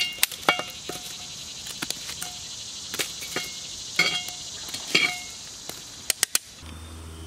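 Metal tongs clinking and scraping against a cast-iron Dutch oven lid as hot coals are lifted off it: a series of sharp clicks, several with a short metallic ring. Crickets chirr steadily in the background.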